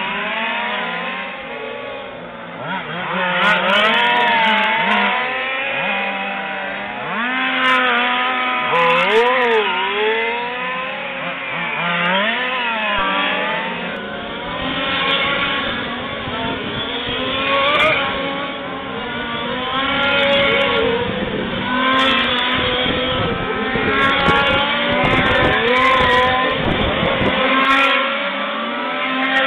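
Several 1:5-scale RC racing trucks' small two-stroke petrol engines revving up and down as they lap, their pitches rising and falling and overlapping as they pass. A low rumble joins from about halfway.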